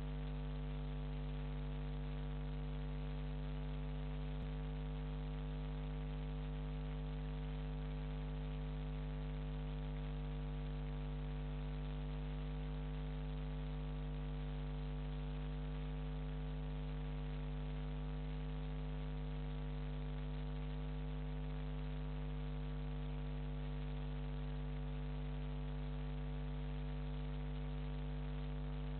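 Steady electrical mains hum with a buzzy edge and a constant hiss of static.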